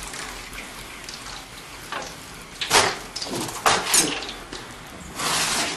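A fork clicking and knocking against a frying pan and a foil tray as fried battered artichoke pieces are lifted out of hot oil, with a few sharp knocks about three and four seconds in. Under it the frying oil hisses faintly, with a short louder hiss near the end.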